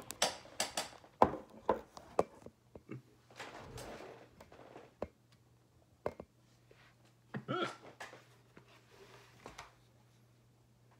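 A person hiccupping again and again, as with hiccups that won't stop: short, sharp gulps, a quick cluster in the first two seconds and a louder, voiced one about seven and a half seconds in.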